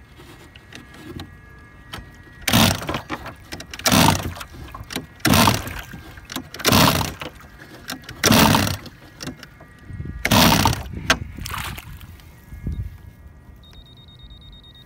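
Seven loud rasping bursts about a second and a half apart: repeated attempts to start the RC boat's twin two-stroke engine, which does not catch.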